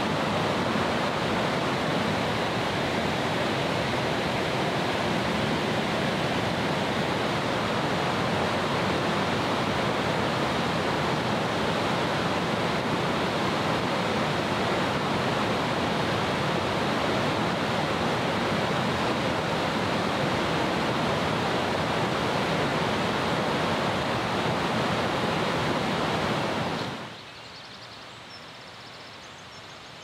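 Steady rush of fast-flowing mountain water, cutting off abruptly about three seconds before the end to a much quieter outdoor background.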